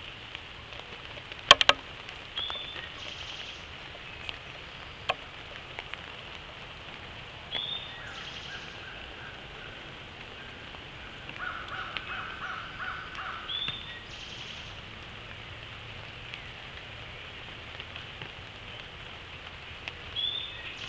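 Steady rain falling in woodland, with a bird's short call repeating every five or six seconds and a quick cluster of sharp clicks about a second and a half in.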